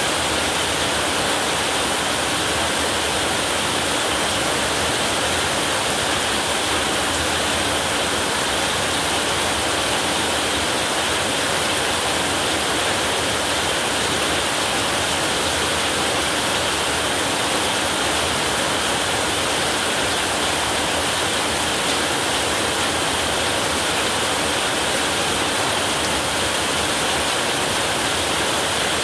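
Heavy rain falling on a roof: a dense, steady hiss that does not change.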